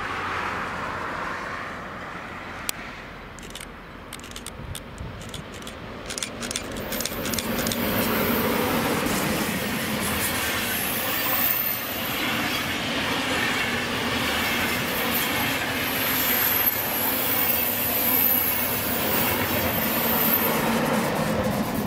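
A DB InterCity train passes close by. Sharp ticks come as it approaches, then a steady rumble and clatter of the coach wheels from about eight seconds in, with high-pitched wheel squeal over the second half as the red electric locomotive comes by.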